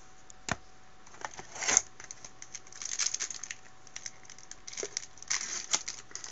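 A baseball card pack wrapper being handled and torn open, crinkling and rustling. A couple of sharp clicks come in the first two seconds, and dense crinkling follows from about two and a half seconds in.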